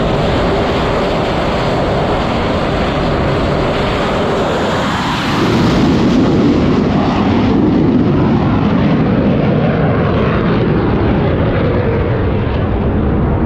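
Dassault Rafale's twin jet engines at high power for a carrier catapult launch: a loud, steady jet noise that grows louder and deeper about five seconds in.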